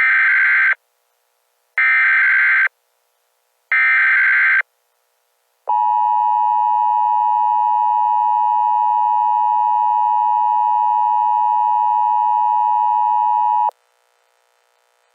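Emergency Alert System signalling: three short bursts of screeching SAME digital header data, then the two-tone EAS attention signal held steady for about eight seconds before cutting off abruptly. It opens an Emergency Action Termination alert.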